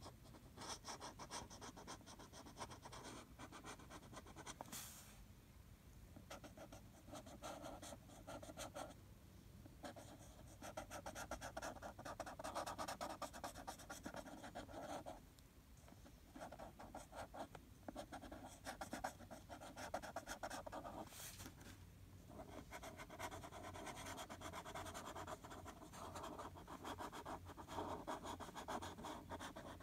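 Felt-tip marker scribbling on paper, faint quick scratchy strokes in runs with short pauses as the tip is lifted and moved.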